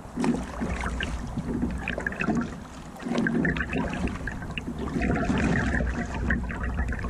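Water sloshing and splashing around a small boat under way, swelling unevenly about once a second over a steady low rumble, with scattered small splashes.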